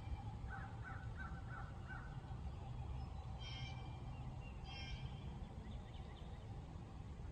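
A crow cawing in a quick series of about five caws, followed a few seconds later by two brief songbird chirps, over a low steady rumble.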